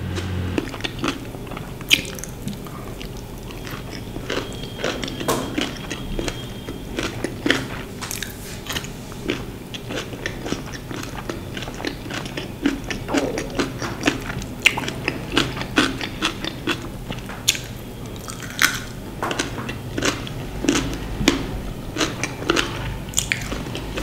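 Close-miked eating of a chole bhature meal: irregular crisp bites and chewing, many short sharp clicks a second apart or less.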